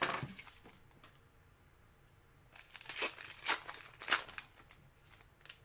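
Trading-card pack wrapper being torn and crinkled by hand: a short rustle at the start, then a cluster of crinkling about two and a half to four seconds in.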